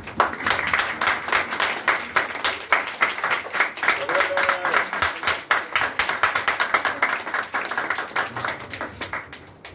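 Audience applauding: many hands clapping in a dense, continuous patter that thins out near the end, with a short voice call about four seconds in.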